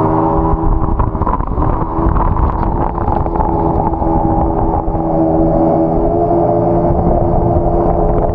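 Yamaha jet ski engine running steadily at speed, holding an even pitch, over a rush of water and wind noise.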